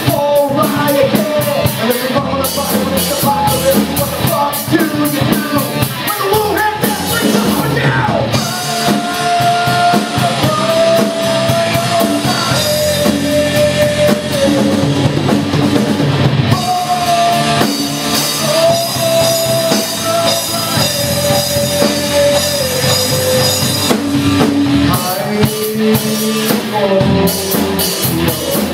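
Live rock band playing: electric guitars and a drum kit with busy cymbals, and a singer. Twice, a run of long held notes steps down in pitch.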